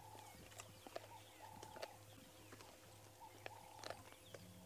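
Faint calls of monotonous larks: short, level-pitched phrases repeated several times, with scattered soft clicks and rustles.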